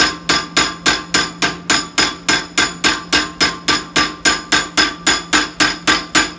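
Hand hammer tapping a small carving tool into red-hot Damascus steel clamped in a vise: an even run of ringing taps, about four a second, that stops right at the end. This is hot-carving the eye of the head, taken slowly with light blows.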